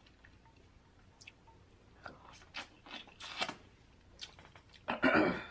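A sauce-coated boiled shrimp being peeled by hand close to the microphone: its shell crackles with scattered wet, sticky clicks. Near the end comes a louder, fuller wet mouth sound.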